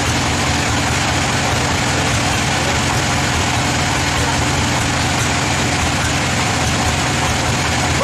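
A band sawmill's engine idling steadily, with no cut in the wood.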